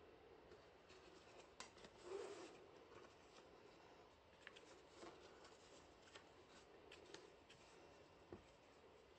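Faint rustling and soft ticks of a flat cloth tie being pulled, slid and tucked across the lid of a paulownia-wood box as it is knotted, with a slightly louder rustle about two seconds in.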